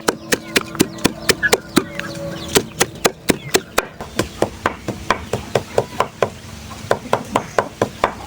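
Rapid, regular chopping with a blade striking onto a hard base, about three to four strokes a second.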